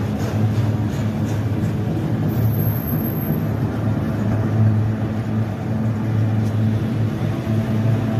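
Diesel freight locomotives running, a steady low drone.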